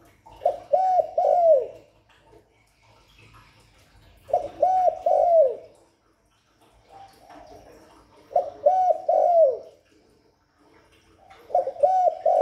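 Spotted dove (cu gáy) cooing its territorial call, as used for a decoy. A short phrase of about three notes, the last one falling, comes four times, roughly every four seconds.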